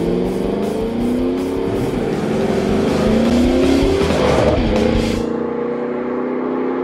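2005 Chevy SSR's 6.0-litre LS2 V8 accelerating hard through a Flowmaster American Thunder exhaust with a 50 Series muffler. The engine pitch climbs, drops back at an upshift about two seconds in and again around four and a half seconds, then climbs again.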